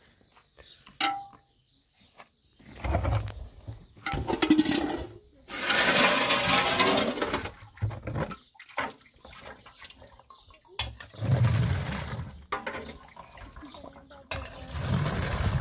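Liquid being poured or sloshed in several separate bursts, the longest near the middle, after a single sharp click about a second in.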